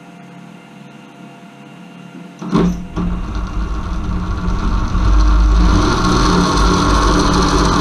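Converted car alternator run as a brushless motor by a small 30 A drone ESC, driving a second alternator through a chain under a reduced load. It starts with a clunk about two and a half seconds in, then spins up and runs steadily, louder from about five seconds on.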